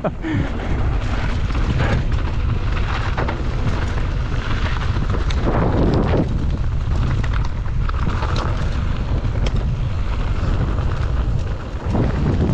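Wind rumbling on the microphone of a camera on a moving mountain bike, with scattered clicks and rattles from the bike over rough trail.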